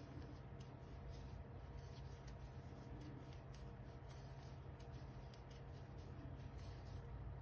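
Faint rustling and scratching of cotton-blend yarn being worked with a crochet hook, with small irregular ticks as the hook catches and pulls loops through the stitches, over a low steady hum.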